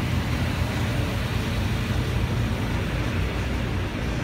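Car wash high-pressure spray: hot, soapy solution blasted at about 800 psi from a robotic prep arch's nozzles onto a car. It is a steady hiss over a deep, unbroken rumble.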